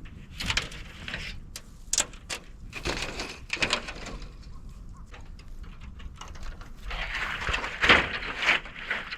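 Moso bamboo branches and leaves burning in an open fire, crackling with irregular sharp snaps and hissing spells, loudest about eight seconds in.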